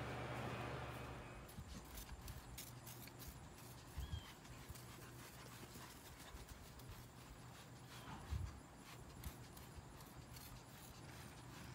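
Electric horse clippers humming steadily, fading out about a second in. After that, only a quiet background with faint ticks and a couple of soft thumps, about four and about eight seconds in.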